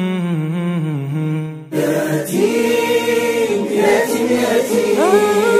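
Vocal Islamic nasheed: a single low male voice holds a wavering melody, then about two seconds in it gives way to several voices singing in harmony, one of them sliding upward near the end.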